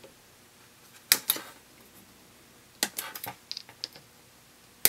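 Hobby side cutters (nippers) snipping through the plastic gates of a Gunpla part on its runner. A handful of short, sharp clicks come about a second in, in a cluster around three seconds, and once more at the very end.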